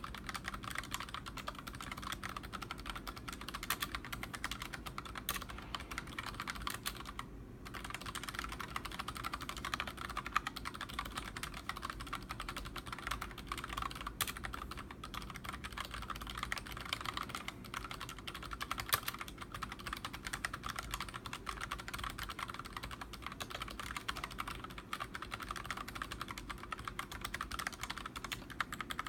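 Royal Kludge RK-S108 mechanical keyboard with unlubricated Kailh Box Red linear switches and PBT Cherry-profile keycaps, typed on quickly and continuously as a dense run of key clacks. It pauses briefly about seven seconds in.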